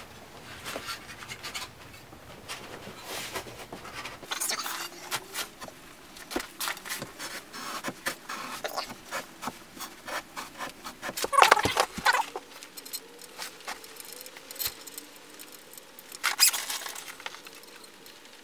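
Irregular clicks, knocks and scrapes of a Starboard deep Tuttle to top plate adapter being pushed and worked by hand onto the top of a carbon foil mast. The loudest burst of scraping comes about eleven seconds in, with another near the end.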